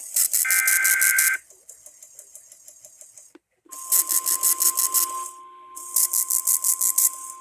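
NOAA Weather Radio EAS required weekly test signal: a second-long burst of buzzing SAME digital header data tones, a couple of seconds of faint static, then a steady single-pitch alert tone that starts about halfway through, with repeated bursts of rapid high-pitched pulsing beeps over it.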